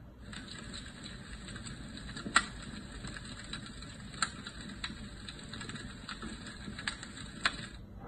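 Jellyfish mood lamp's built-in white-noise speaker playing a soft hiss with scattered sharp crackles, the loudest about two and a half seconds in. The track starts just after the beginning and cuts off near the end, as the lamp steps to another of its sounds.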